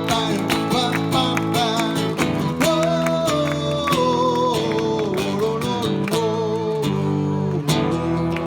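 Live acoustic guitar music, strummed chords with a wavering melody line over them from about two seconds in, at the close of a song.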